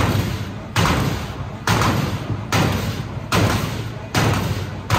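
A heavy, steady thumping beat, a little more than one hit a second, each hit sharp with deep bass and then fading, like the kick of loud music.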